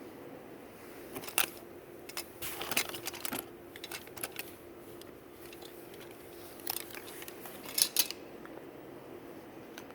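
Clothing being handled, with short rustles and clicks coming in scattered clusters over a faint steady hum.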